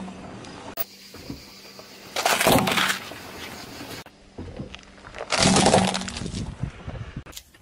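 Two loud cracking crunches about three seconds apart, each a car tyre rolling over and crushing something on the asphalt. The second is a clear plastic box of red candies breaking under the tyre.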